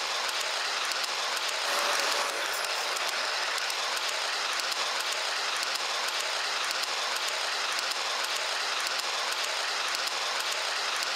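Steady fast rattle of small mechanical clicks over a hiss, holding at one level throughout.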